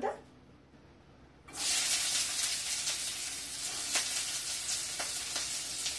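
Sliced onions and green chillies dropped into hot oil in a frying pan: the oil starts sizzling suddenly about a second and a half in and keeps up a steady hiss, with a few light clicks.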